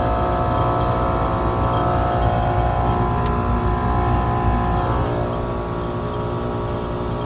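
Outdoor air-conditioning condenser unit running: a steady mechanical hum of compressor and fan with a stack of even tones, easing a little about five seconds in. It is running in cooling mode while the gas furnace also heats, caused by a thermostat misprogrammed for heat pump.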